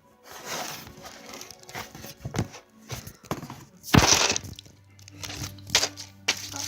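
Crinkling and rustling handling noise with scattered clicks and knocks, loudest in one burst about four seconds in.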